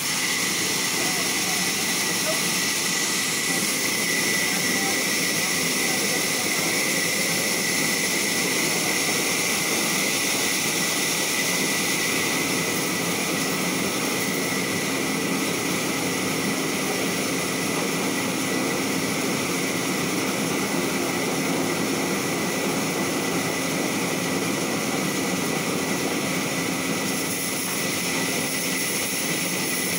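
Large sawmill band saw running steadily and cutting through a log fed on a carriage, giving an unbroken noise with a steady high tone.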